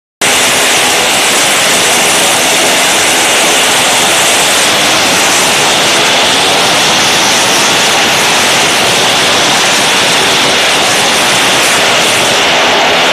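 Small motorcycle engine running hard at high revs as the bike circles the vertical wooden wall of a wall-of-death drum: a loud, steady engine drone.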